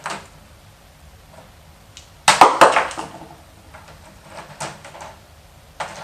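Batteries being pushed into battery holders on a Macintosh II logic board: scattered light clicks, with a cluster of several loud clicks and clatter about two and a half seconds in.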